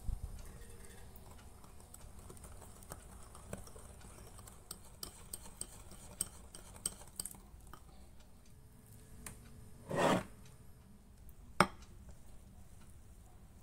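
Wire balloon whisk beating a butter, egg and coffee topping batter by hand in a ceramic bowl, its wires clicking and tapping against the bowl. A brief louder scrape comes about ten seconds in, then a single sharp clink.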